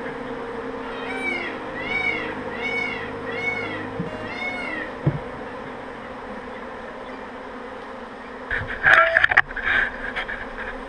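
Honeybee swarm buzzing steadily at a hived swarm box. Over it, a run of five short rising-and-falling calls comes about a second in, each under a second apart. Louder, irregular close buzzing and knocking near the end.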